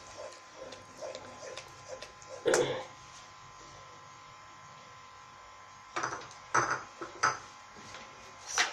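Wooden spoon stirring a thick onion masala in an aluminium pot, with short knocks and scrapes of wood on metal, the loudest about two and a half seconds in and a cluster around six to seven seconds. A steady electrical hum runs underneath.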